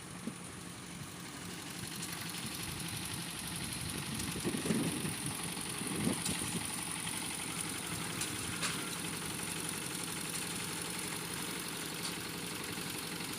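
Engine idling steadily, with a few faint knocks and swells in its sound.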